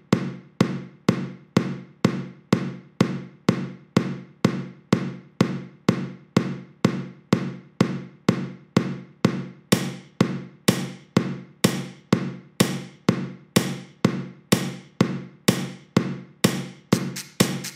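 Background music with a steady beat of about two strikes a second over a held low tone. A brighter, hissy top joins the beats about halfway through, and near the end the strikes come twice as fast.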